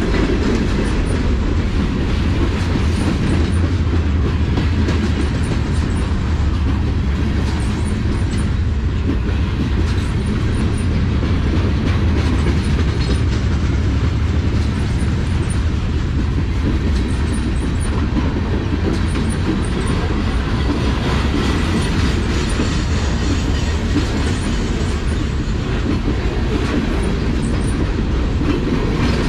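Freight train cars rolling past close by: a steady rolling noise of steel wheels on rail, heaviest in the low end, with wheels clicking over the rail joints.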